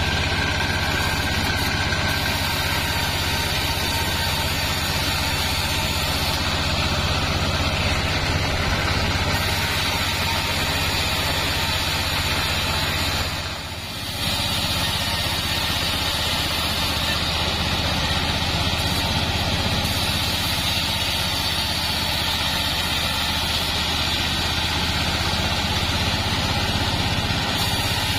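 Bandsaw sawmill running steadily as sengon wood boards are fed past its blade: a constant low drone with a high hiss over it. The sound dips briefly about halfway through.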